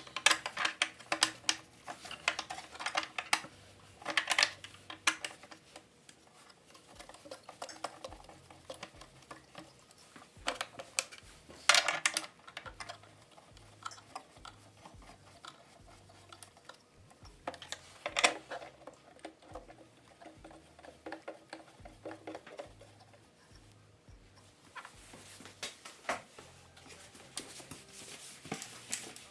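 Irregular metallic clicks and clinks of small metal parts and hand tools being handled on a thickness planer's blade assembly, with a few louder knocks about 4, 12 and 18 seconds in.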